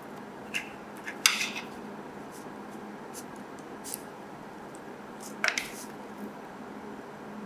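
Short clicks and taps of a hard plastic Mini 4WD body shell being handled on a table, with a sharper knock about a second in and another small cluster of clicks about five and a half seconds in.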